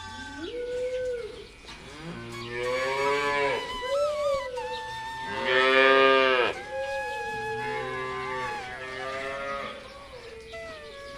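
Cattle mooing: a series of long calls that bend in pitch, the loudest about halfway through.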